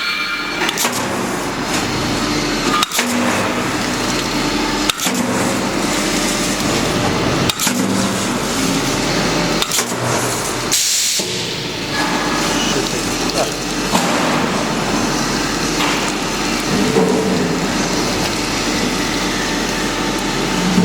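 Resistance seam-welding machine working on stainless steel sheet: a steady mechanical hum and noise with a sharp click every two seconds or so, and a short hiss about eleven seconds in.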